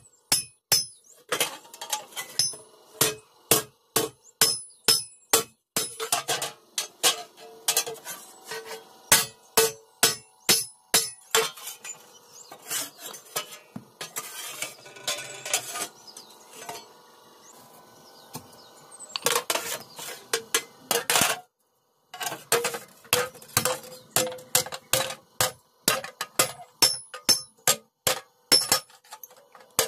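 Hand hammer striking a red-hot iron sheet on a small anvil block: a run of sharp, ringing metallic blows at about two a second, thinning to a few lighter taps for several seconds in the middle before the steady hammering resumes.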